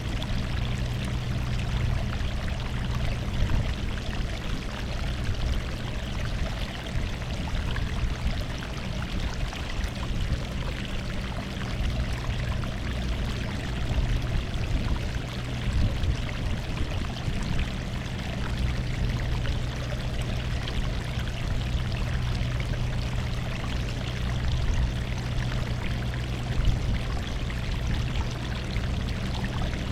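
Sea water washing against the shore in a continuous rushing, splashing wash, with a steady low hum underneath.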